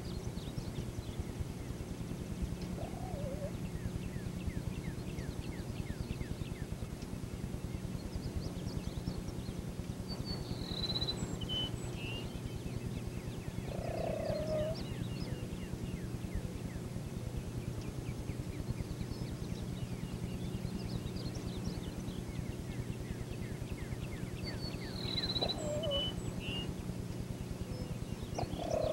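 Wild turkeys giving short low calls about four times, with a small bird chirping twice in high notes, over a steady low hum.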